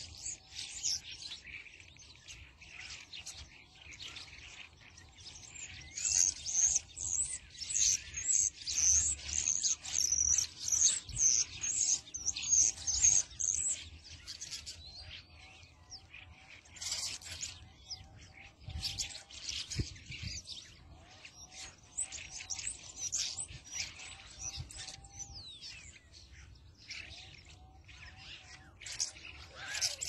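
A crowd of small birds chirping and chattering in quick, overlapping calls, louder and denser for a long stretch in the first half. A lower, short repeated note runs beneath.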